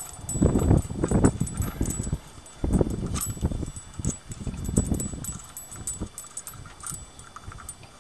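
Wrench turning a bolt threaded into a fiber (phenolic) timing gear in short strokes, with light metallic clinks of the wrench and tools, in a few bouts of about a second each.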